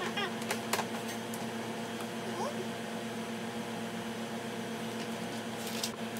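Clicks and knocks of hard plastic parts of a baby activity chair being handled and fitted, a few near the start and a cluster near the end, over a steady mechanical hum in the room.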